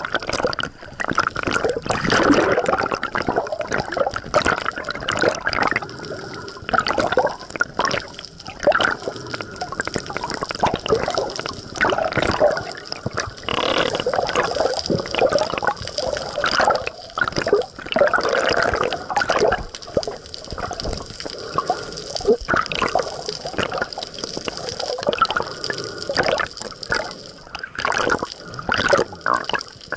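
Water sloshing and gurgling around a camera held just under the sea's surface, in irregular surges.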